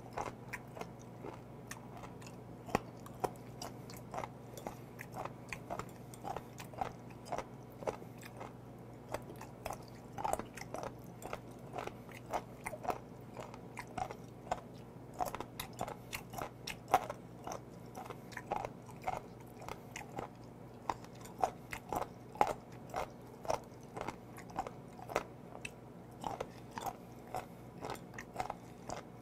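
Close-miked chewing of sliced horned turban sea snail meat: a steady run of crunchy, chewy bites, roughly two a second.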